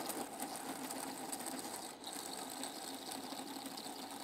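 Powered acetabular reamer on a robotic arm running steadily as it reams bone out of the hip socket, the motor sound dipping briefly about halfway through.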